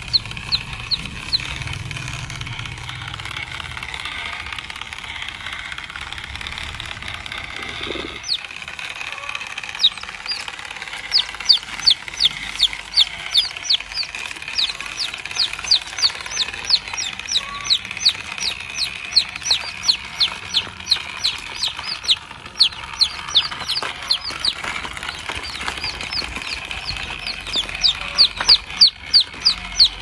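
Baby chicks peeping over and over, rapid high-pitched peeps, each one a quick falling note, several a second. The peeping is sparse at first, grows dense about a third of the way in, eases briefly, then picks up again near the end.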